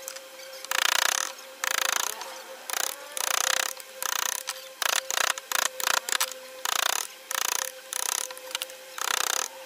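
Carving chisels cutting into a hardwood panel, driven by a claw hammer, in a long run of short rasping strokes, about one to two a second, a little faster in the middle.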